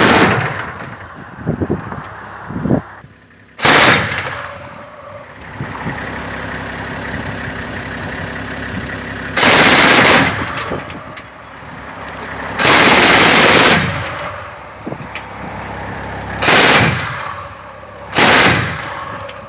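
Truck-mounted heavy machine gun firing bursts of automatic fire, six in all, each lasting about a second. Between the bursts, a vehicle engine hums steadily.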